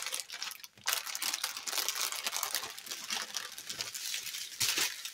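Clear plastic packaging crinkling and rustling as a strip of sealed bags of diamond painting drills is handled and turned over, starting about a second in and lasting until near the end.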